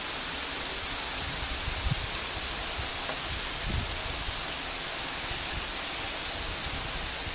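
Hail coming down hard: a steady, dense hiss of hailstones pelting the ground and plants, with a few brief low thumps between about one and four seconds in.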